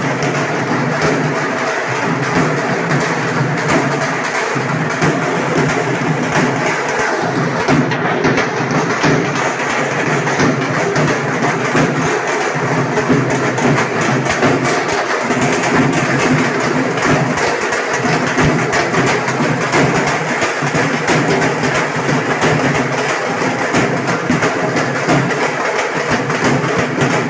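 Loud music with a busy percussive beat playing without a break, with little deep bass, as music sounds when heard from a DJ's PA sound system.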